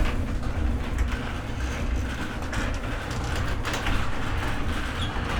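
Motorized garage door running along its tracks: a steady low rumble with occasional clicks and rattles.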